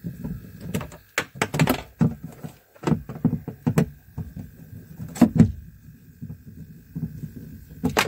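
A metal screwdriver prying plastic fittings out of a refrigerator's plastic inner liner: irregular sharp clicks, knocks and scrapes, thickest in the first half.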